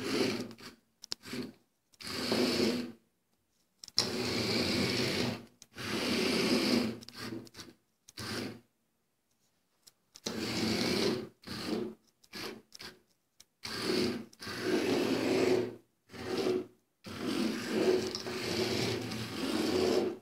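Small DC gear motors of an Arduino robot car whirring in short, irregular bursts. They start and stop over and over as the car is driven and halted, with silent gaps between the runs, the longest about nine seconds in.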